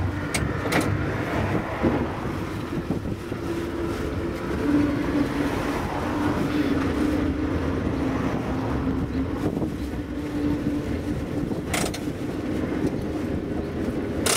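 A 1904 ASEA-built SSB A2 tram running along the rails: wheels rumbling with a steady motor hum, a few sharp clicks, the loudest about twelve seconds in, and wind on the microphone from its open front platform.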